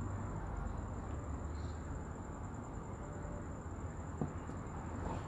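Steady low hum and airflow hiss of an electric desk fan, with a thin high-pitched whine held throughout. A couple of light taps come about four seconds in.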